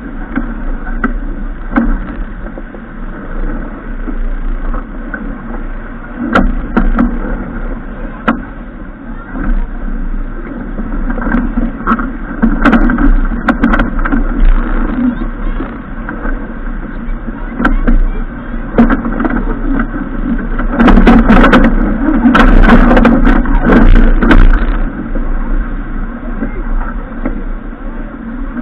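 Wind buffeting the microphone over a steady rush of water on a boat, with scattered knocks and rattles. About three-quarters of the way through, the clatter gets louder and busier for a few seconds.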